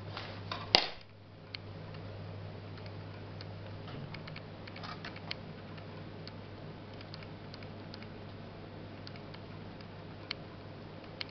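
Light clicks, taps and rustles of hands working in a clear plastic tray of potting soil with a wooden skewer while planting seedlings, with one sharp click about a second in, over a steady low hum.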